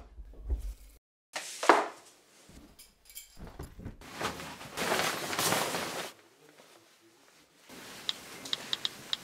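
A sequence of short household handling sounds cut together: a sharp knock about two seconds in, a rustling stretch through the middle while shoelaces are tied, and near the end a run of light clicks from typing on a smartphone's touch keyboard.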